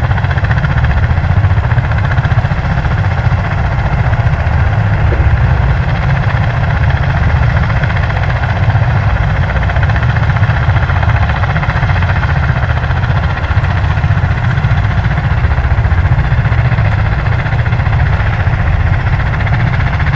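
Marine Corps V-22 Osprey tiltrotors warming up on the ground: Rolls-Royce AE 1107C turboshaft engines and proprotors running at a steady, loud drone with a fast low throbbing.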